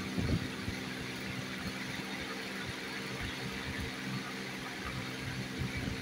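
A steady low hum, even in pitch, with a few soft taps near the start and again near the end.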